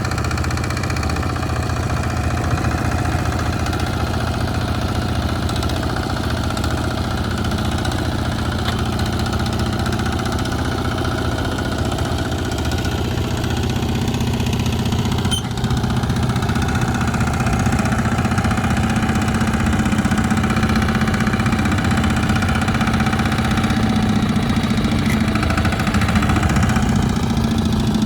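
Heavy farm machinery's engine running steadily without a break, a little louder in the second half, with one short click about halfway through.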